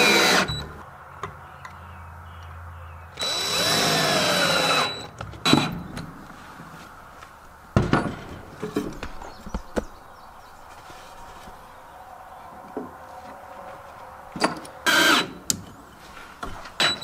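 Power drill driving screws through metal conduit straps into a wooden 2x4: one run of the drill about three seconds in, with its pitch rising and falling, and a shorter burst near the end, with knocks and clicks of handling in between.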